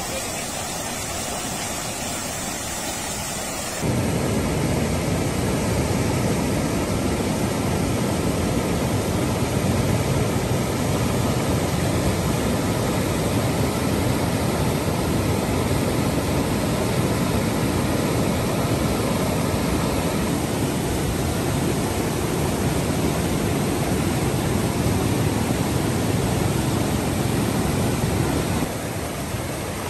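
River floodwater rushing in a steady torrent through a breach where the levee road has collapsed. It gets louder and fuller about four seconds in and drops back just before the end.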